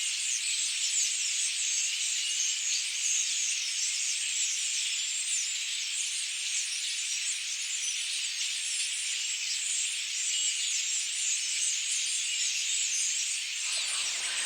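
Dense, steady, high-pitched chorus of buzzing insects. Near the end a lower rushing sound joins in.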